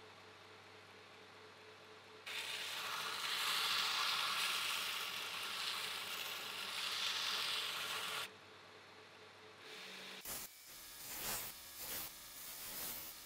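Planer-blade steel being ground on a running belt grinder: a steady hiss of steel against the abrasive belt starts suddenly about two seconds in and cuts off about six seconds later. Near the end come several short, uneven grinding touches.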